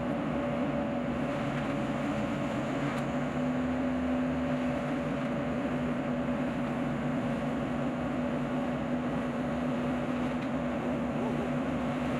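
Steady drone of heavy equipment running, a constant engine hum that holds level without revving.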